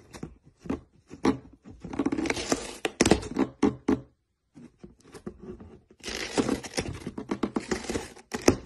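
A cat chewing and biting the edge of a cardboard box: irregular crunching and tearing of cardboard in two spells, with a quieter pause about halfway.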